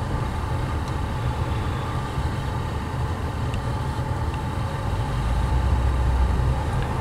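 Interior cabin sound of a 1976 Chevrolet Caprice Classic with its V8 engine driving slowly in traffic: a steady low engine and road rumble, swelling slightly near the end.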